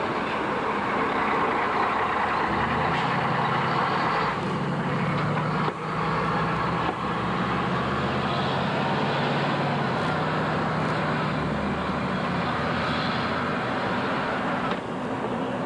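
Mack fire engine on the move, its engine and road noise running steadily. The engine's drone grows stronger a few seconds in and eases off about eleven seconds in.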